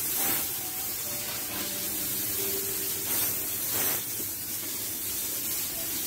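Corded handheld electric sanitizer sprayer hissing steadily as it puts out a fine mist, getting briefly louder a few times.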